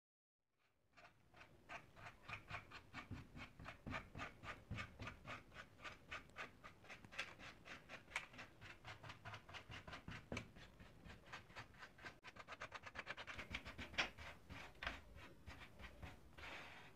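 Quick, even run of small clicks from handwork on a plastic computer keyboard, about four or five a second, speeding up near the end.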